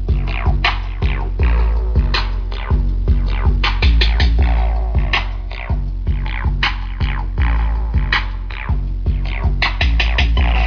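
Loud electronic music with a drum-machine beat and scratching effects and very strong deep bass, played through a car audio rig of 15-inch subwoofers and horn drivers.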